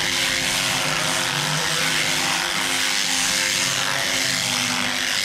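Electric sheep-shearing machine running with a steady buzz as the clippers cut through fleece.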